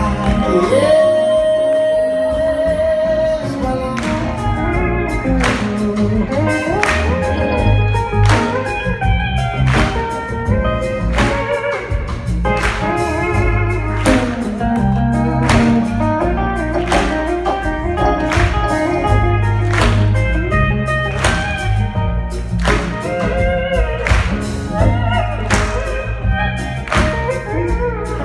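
Live band playing an instrumental passage with a steady drum beat, a pedal steel guitar playing the lead line over electric guitars and bass.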